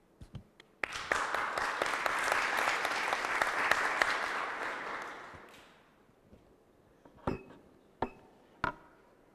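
Audience applauding, a dense patter of many hands that fades out over about five seconds. Then three sharp knocks, a little apart, near the end.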